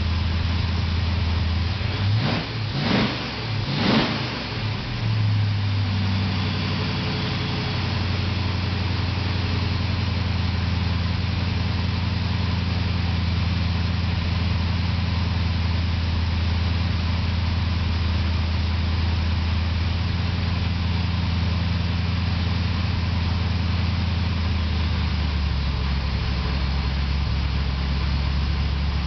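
Freshly built carburetted V8 in a hot rod, running on its first start-up after a frame-off build. Two or three quick throttle blips at the carburettor in the first few seconds make the revs rise and fall, then it settles into a steady idle.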